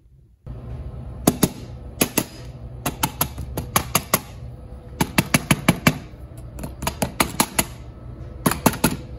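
A soft-faced mallet taps lightly on a Rochester Quadrajet carburetor, in quick clusters of several taps, to break the stuck air horn loose from the carburetor body.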